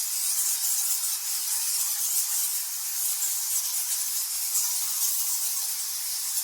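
Many bats chattering together: a dense, steady wash of high-pitched squeaks and twitters with nothing low in it.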